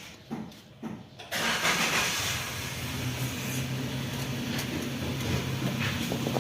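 Maruti Alto K10's starter motor, freshly fitted with a new drive gear, cranks and the three-cylinder petrol engine starts about a second in, then settles into a steady idle. A few light clicks come just before the start.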